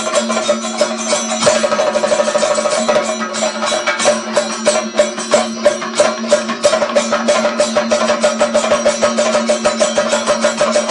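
Kathakali percussion ensemble of chenda and maddalam drums, played in fast, dense strokes, with a steady ringing tone underneath.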